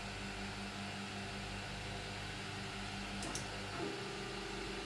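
Quiet, steady hum of a CoreXY 3D printer's Z-axis stepper motor slowly raising the bed during homing, over the constant whir of the E3D hotend's small 30 mm cooling fan. About three seconds in, faint ticks are heard and the motor's hum shifts to a higher steady tone. The slow Z move reflects a Z feedrate set too low.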